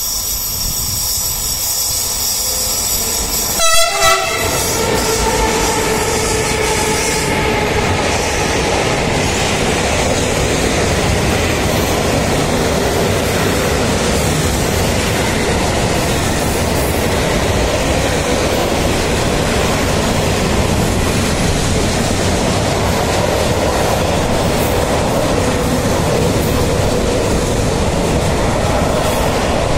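A freight train passing through a station: the locomotive sounds its horn in two short blasts about four seconds in, then the long line of freight wagons rolls past with steady wheel and rail noise.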